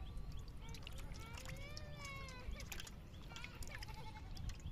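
Drawn-out animal cries, each rising and then falling in pitch: a longer one about one and a half seconds in and a shorter one near the end, with scattered light clicks underneath.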